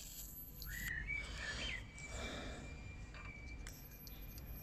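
Garden birds chirping briefly about a second in, over a low wind rumble on the microphone. Around two seconds in comes a soft rushing hiss as a long gas lighter sets a solid-fuel tablet alight under a small hobby steam engine's boiler.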